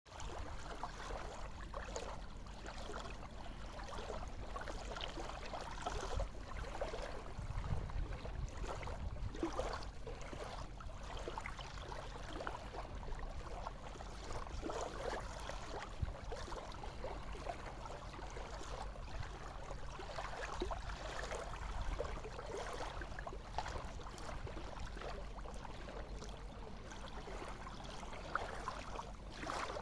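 Sea waves washing steadily, with a low rumble underneath.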